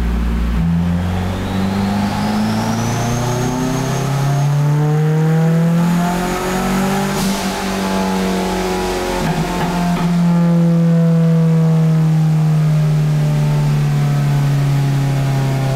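Turbocharged Honda Civic VTi's four-cylinder engine pulling under load, rising steadily in pitch for about seven seconds with a high whine climbing alongside. It then eases off and holds a lower, slowly falling note.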